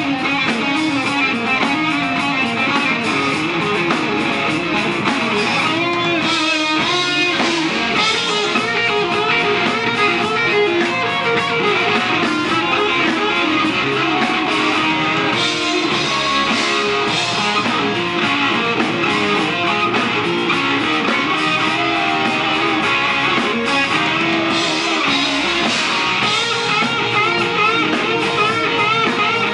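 Live rock band playing loud electric guitars and drums.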